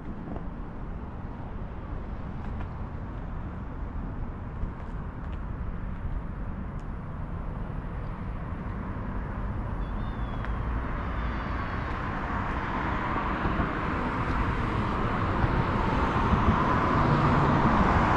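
Outdoor traffic noise: a steady low rumble, with the hiss of a passing vehicle growing gradually louder over the second half.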